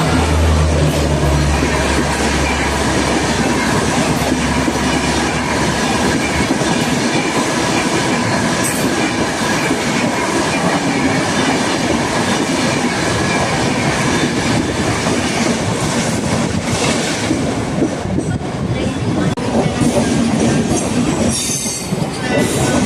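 A locomotive-hauled express train running through a station at full speed: a heavy low drone as the locomotive goes by in the first couple of seconds, then the steady loud rush of the coaches' wheels on the rails, with a thin steady squeal over it.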